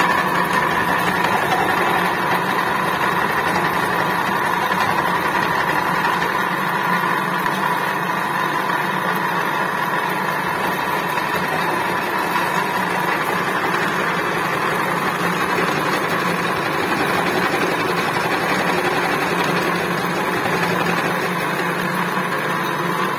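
Vertical milling machine running, its end mill cutting a contour groove in the workpiece as the table is fed by handwheel. A steady drone with a few steady whining tones over it.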